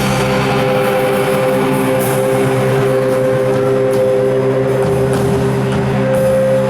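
Band music: one long held chord, with cymbal strikes about once a second.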